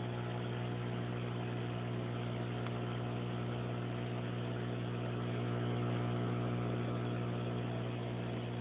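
Tetra Whisper 20 aquarium air pump running with a steady low hum and a light hiss: the buzz of its electromagnetically driven diaphragm. It is quiet but not silent.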